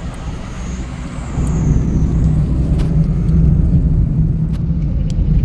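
Car driving along a road, heard from inside the cabin: a steady low rumble of engine and tyres that gets louder about a second and a half in.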